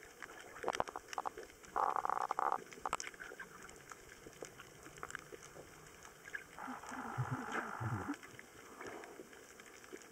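Underwater ambience picked up by a submerged camera: scattered sharp clicks and crackles, with a short burst of hissing noise about two seconds in and a longer one with a low rumble from about six and a half to eight seconds in.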